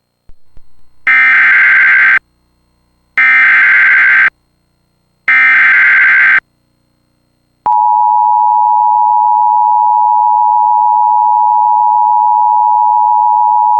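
Emergency Alert System activation: three buzzing one-second bursts of SAME header data, about a second apart, then, nearly eight seconds in, the loud steady two-tone EAS attention signal (853 and 960 Hz together). Together they signal that a severe thunderstorm warning is about to be broadcast.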